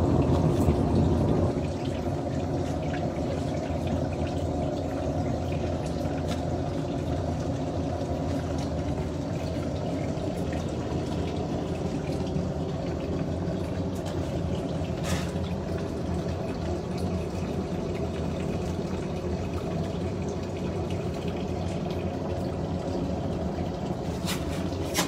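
Portable mini glass furnace running with a steady rushing noise, a little louder for the first second or so. A couple of short sharp clicks cut through it, one about halfway and one near the end.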